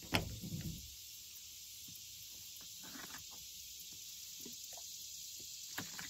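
A sharp click and fabric rustling as a bee suit's zippered veil is pulled open, then near-quiet with a steady faint hiss and a few soft handling sounds while a water bottle is drunk from.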